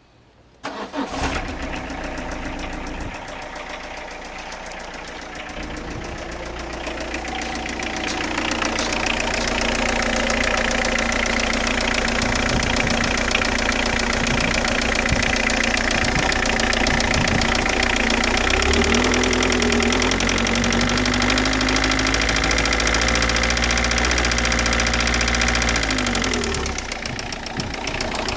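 A 2003 Citroën Saxo's engine starting about a second in, then running with a clacking knock, the noise the owner is trying to show. Its note changes about two-thirds of the way through and drops back shortly before the end.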